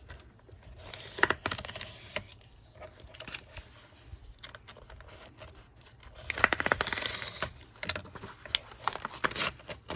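A knife cutting through paper on a cutting mat: scratchy, uneven strokes with small clicks, heaviest a little past halfway through.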